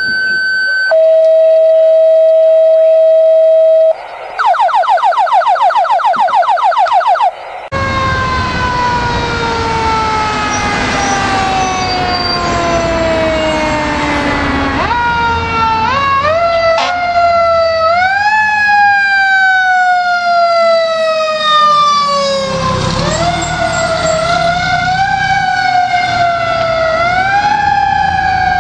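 Radio dispatch alert tones: a short high tone, a lower tone held for about three seconds, then a fast pulsing tone. Then a fire engine's Federal Q mechanical siren coasts slowly down in pitch and is wound back up several times over the truck's engine rumble.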